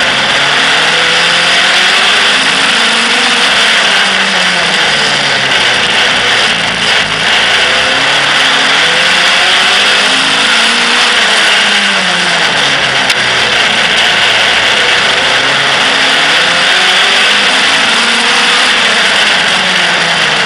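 Outlaw stock car engine heard from on board while racing, the revs climbing on each straight and dropping into each bend, about three times over, under a loud steady rushing noise.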